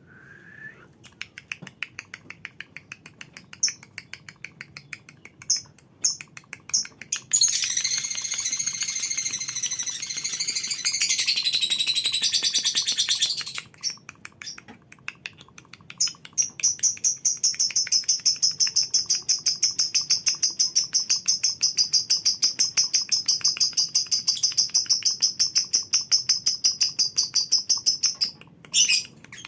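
Lovebirds chattering: scattered sharp chirps, then a dense, high trill for about six seconds. After a short pause comes a long, fast, evenly pulsed chatter call (the 'ngekek') lasting about twelve seconds.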